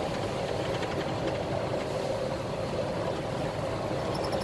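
Steady engine and road noise inside the cab of a Scania 113 truck on the move.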